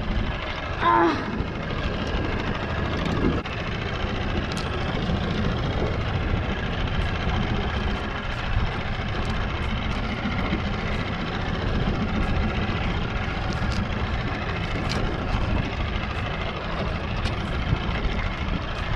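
Steady low rumble of wind buffeting the microphone on a small open boat at sea, with a few light ticks scattered through it.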